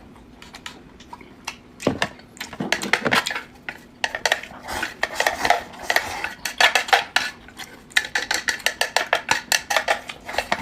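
Eating utensils clinking and scraping against a dish in many quick strokes. They begin about two seconds in and come thick and fast from about four seconds on.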